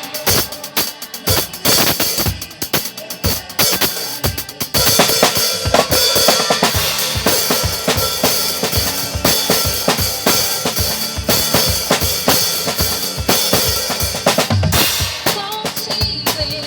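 Drum kit played in a steady beat along with a recorded song, the song's instruments sounding beneath the drums. The playing grows louder and fuller about five seconds in.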